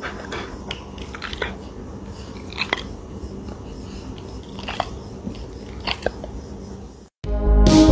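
Rottweiler's mouth sounds: a scattered handful of sharp clicks and smacks from its jaw and lips, spread over several seconds. Near the end the sound cuts off and loud electronic music starts.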